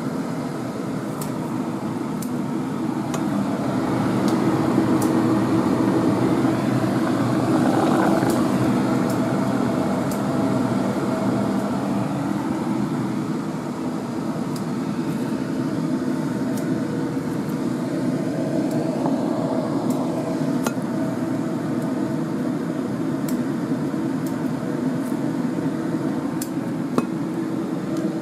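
A steady mechanical hum with scattered light clicks, as scissors snip fenugreek stems and a glass dish is handled.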